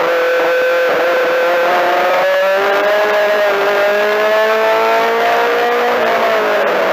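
Four-cylinder Mini-Stock race car engine heard from inside the cockpit, running hard under racing throttle. Its pitch drops sharply about two seconds in, climbs slowly, and bends again near the end.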